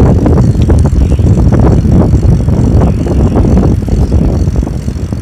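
Loud, gusting wind rumble on the phone's microphone from riding along at speed.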